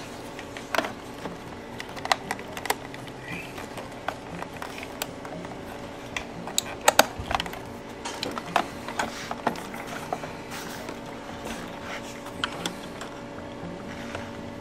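Light clicks and taps of hands and a screwdriver handling the plastic panel and casing of a Honda EU2000i inverter generator, with a pair of louder clicks about seven seconds in, over a steady background hum.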